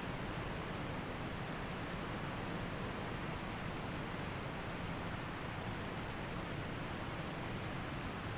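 Waterfall and creek water rushing, a steady, even roar with no breaks.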